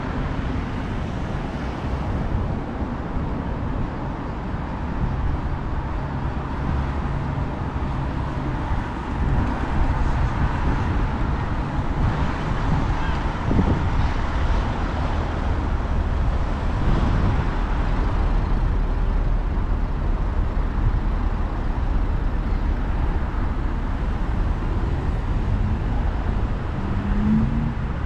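Road traffic passing steadily, cars and the odd larger vehicle, with wind rumbling on the microphone.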